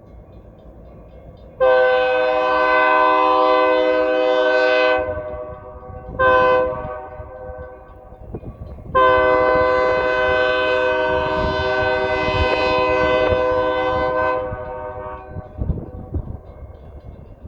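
Air horn on an EMD SD40 freight locomotive sounding for a grade crossing: a long chord blast, a short one, then another long blast. After it, the low rumble and clicking of the passing train.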